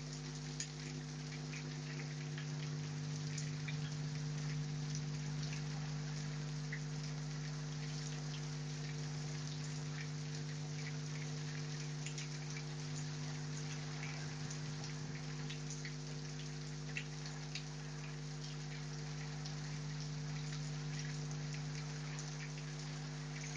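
Heavy rain falling steadily, with many close drops heard as separate ticks, over a steady low hum.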